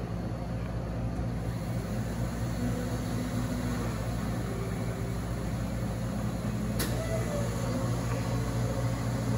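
Hot-drink vending machine running while it fills a paper cup: a steady low mechanical hum, with one sharp click about two-thirds of the way through.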